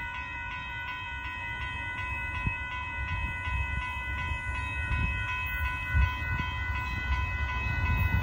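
Railroad crossing warning bells ringing steadily in a rapid, even rhythm. Beneath them a low rumble grows louder toward the end as the Amtrak train approaches.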